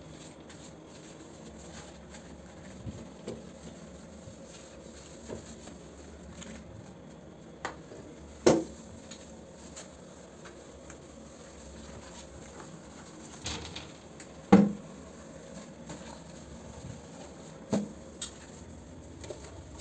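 Toilet being cleaned with rubber-gloved hands: faint wiping and handling noise at the toilet seat and bowl, broken by a handful of sharp knocks, the loudest about eight and a half and fourteen and a half seconds in.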